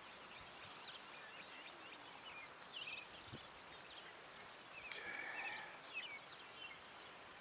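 Faint outdoor ambience with birds chirping on and off, and a single soft thump a little past halfway.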